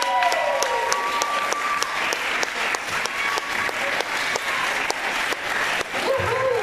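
Audience applauding, with one nearby pair of hands clapping a steady beat of about three claps a second. A voice is heard over the clapping near the end.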